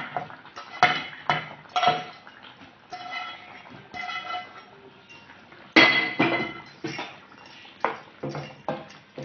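Cookware knocking and clinking as fried raw-banana pieces are tipped from a frying pan into a steel pan of gravy: a string of sharp knocks, several with a brief metallic ring, the loudest about six seconds in.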